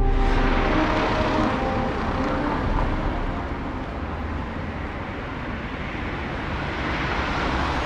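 Road traffic noise from passing vehicles, loudest at the start and easing off towards the middle. The tail of a brass jingle fades out in the first couple of seconds.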